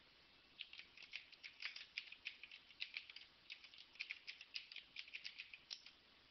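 Computer keyboard typing: a steady run of light key clicks, starting about half a second in and stopping near the end.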